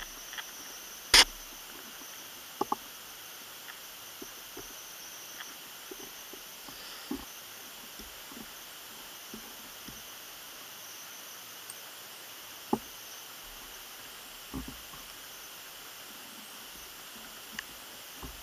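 Small, sparse clicks and taps of steel tweezers and tools on an Omega cal. 344 watch movement as a bridge is taken off, over a steady faint hiss. The sharpest click comes about a second in and a quick double tap follows soon after.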